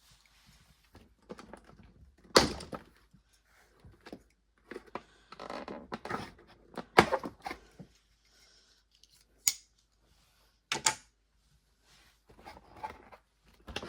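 A cardboard toy box being handled and opened: scattered knocks, scrapes and rustling, with a few sharp clicks, the loudest about two and a half, seven, nine and a half and eleven seconds in.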